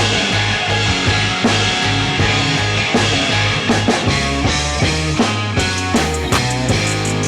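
Background music: an instrumental rock track with drums, bass and guitar, playing a steady beat.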